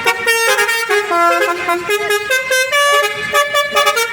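Telolet horn on a Basuri bus: a set of air horns playing a quick tune. Several tones sound together and jump from note to note every fraction of a second, without a break.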